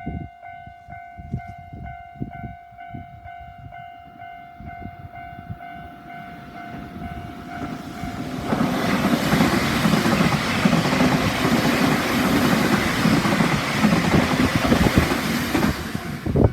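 Japanese railway level crossing warning bell ringing with its standard electronic tone in a steady, even pulse. About eight seconds in, a train passes over the crossing, and its loud rushing and rail noise covers the bell.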